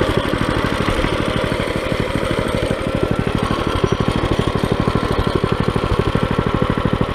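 Minibike's small single-cylinder engine idling, its firing beats even and rapid.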